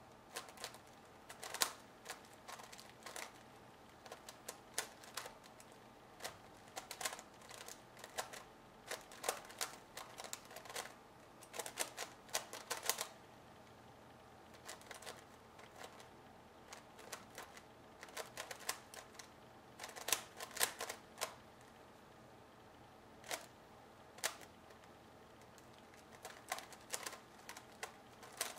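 MF8 Megaminx puzzle being turned fast by hand in a speedsolve: quick runs of plastic clicking and clacking as the faces turn, in irregular bursts with short pauses between them.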